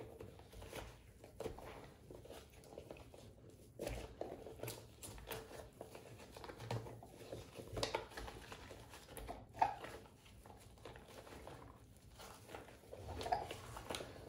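Faint, irregular rubbing and squishing of a wet disinfecting wipe scrubbed over the rubber skin of a Big Mouth Billy Bass singing fish, with a few small knocks against the sink.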